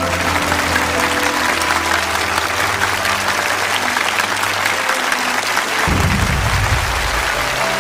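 Studio audience applauding over soft cello music. About six seconds in, a deep low swell rises briefly under the applause.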